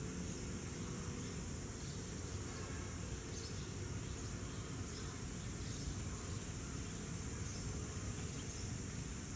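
Insects droning steadily in a constant high pitch over a low rumble from a diesel locomotive approaching slowly.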